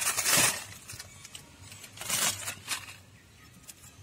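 Plastic instant-noodle packet rustling and crinkling in short bursts, once at the start and again about two seconds in, as the tastemaker is shaken into the pot.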